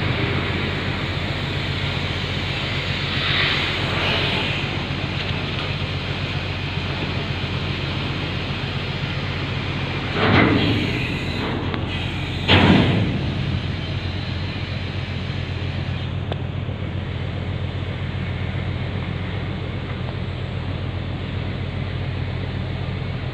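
Steady low drone of a ferry's engines with wind rushing over the deck, and two short louder gusts or rushes about two seconds apart near the middle.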